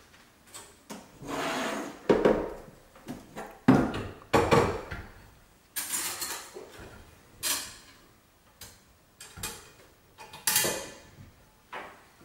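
Irregular knocks, clinks and short scrapes of metal hardware being handled and fitted in a cabinet: a steel mounting bracket and a fire-suppression extinguisher cylinder being set in place.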